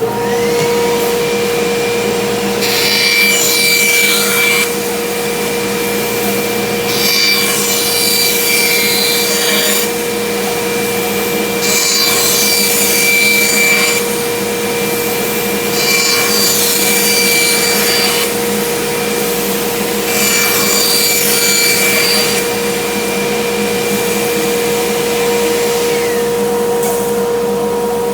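Bandsaw cutting wood while the Ripnado and a Grizzly dust collector suck up the sawdust. A steady motor whine sits under five cutting passes of about two seconds each, and the machines wind down near the end.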